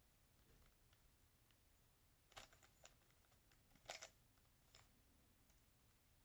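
A handful of faint plastic clicks from a Rubik's Cube's faces being turned quickly, the loudest about four seconds in.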